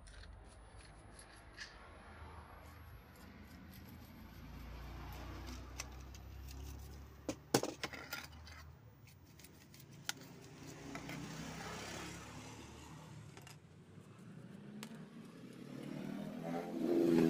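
Plastic clicks and clacks as a Tamiya Mini 4WD car's chassis, body shell and small parts are handled and set down, with a sharp clack about seven and a half seconds in, over a low steady rumble. Near the end a motor vehicle's engine sound swells louder.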